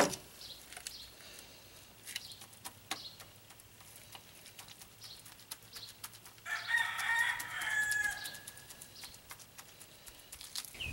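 A rooster crows once, about six and a half seconds in, a wavering call lasting about two seconds. Before it come faint scattered taps and ticks.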